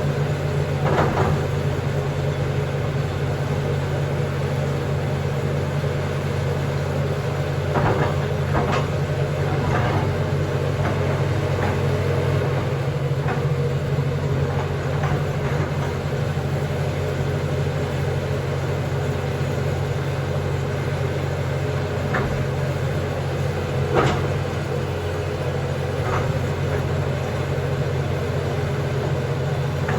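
John Deere backhoe's diesel engine running steadily, with a few sharp clanks over it, the loudest about 24 seconds in.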